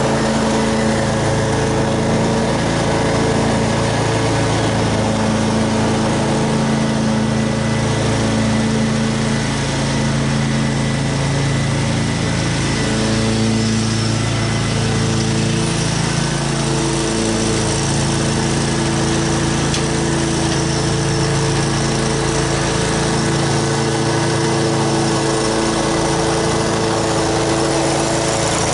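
Exmark Turf Tracer walk-behind commercial mower running at mowing speed while cutting grass, a steady engine note over blade whir whose pitch wavers slightly now and then under load.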